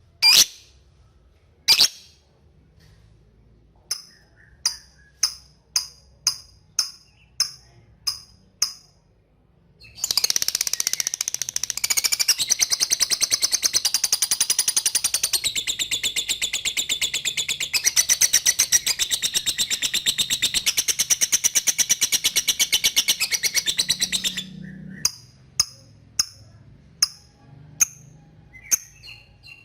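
Lovebird calling: sharp single chips at a slow, even pace ('ngetik'), breaking about ten seconds in into a long rapid chattering trill ('ngekek') of about fourteen seconds, then back to single chips.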